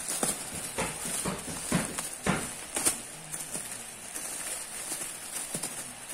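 Thin plastic packaging crinkling and crackling as hands pull at a film-wrapped plastic bag. The crackles come in irregular bursts, with the sharpest in the first three seconds and fewer after that.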